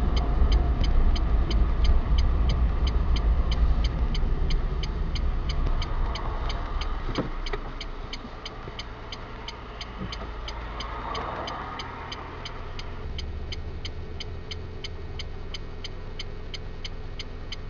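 Inside a car cabin, engine and tyre noise as the car rolls toward a junction, dropping to a quieter idle about halfway through as it stops. The turn signal ticks steadily throughout, about three clicks a second, set for a left turn.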